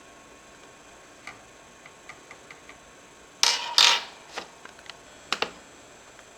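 Small clicks and taps of a laptop's plastic and metal parts being handled during disassembly, with two louder short rasping noises about three and a half seconds in and a pair of sharp clicks near the end.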